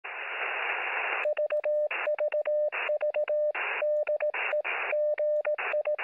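Morse code heard as over a radio receiver: about a second of static hiss, then a steady mid-pitched tone keyed in short and long marks (dits and dahs), with bursts of static filling the gaps between groups.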